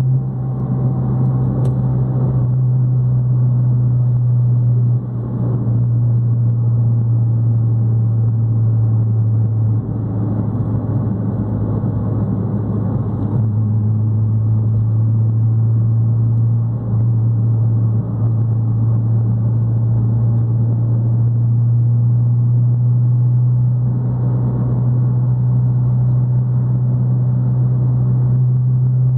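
Fiat Palio's engine and exhaust droning steadily at highway cruise: a deep, even tone with a few brief dips in level.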